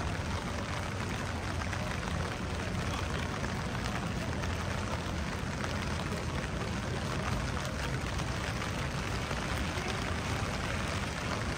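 Steady rain falling on a wet city street, with a low, continuous rumble of traffic underneath.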